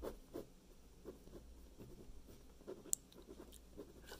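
Pen drawing on paper, picked up close: soft, irregular strokes and ticks, with one sharp click about three seconds in.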